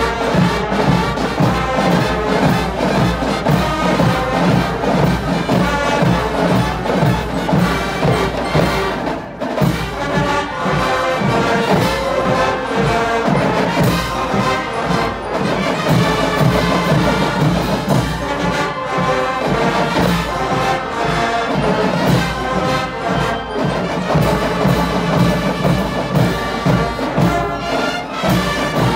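Student marching band of brass and drums playing together, loud and continuous, over a steady drum beat.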